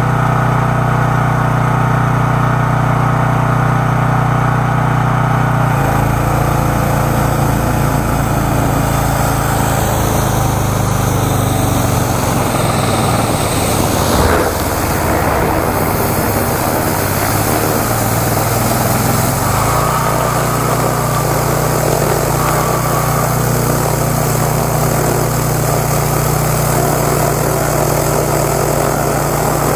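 13-horsepower high-pressure washer engine running steadily under load, with the hiss of its high-pressure water jet spraying against plywood.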